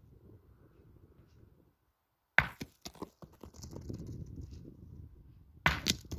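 Steel pétanque boules from shooting practice: two sharp clacks about three seconds apart, each followed by a few smaller knocks.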